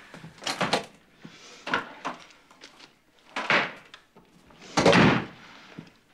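A refrigerator door is pulled open with a clunk a little over three seconds in, then shut with a heavier thud about five seconds in, the loudest sound. A few lighter knocks come before.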